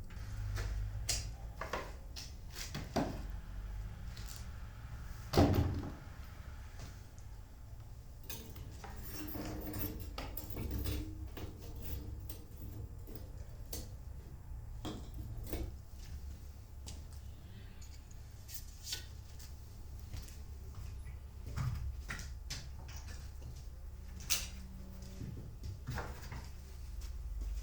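Irregular clicks and knocks of objects being handled, with one louder knock about five seconds in, over a steady low rumble.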